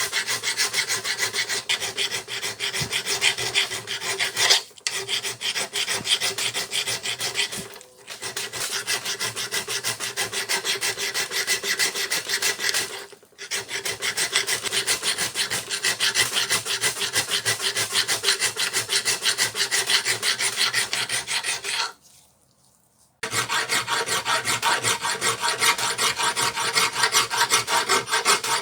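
Rapid, steady back-and-forth rasping strokes of an abrasive hand tool being worked over the piece. The strokes break off briefly three times and stop for about a second near the end.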